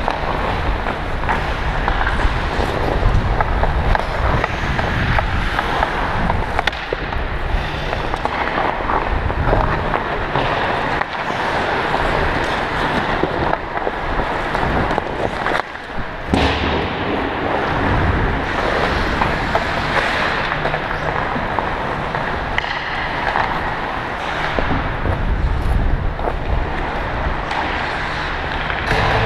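Ice hockey skates cutting and scraping the ice as the player wearing the camera skates, over a steady low rumble, with one brief break about halfway through.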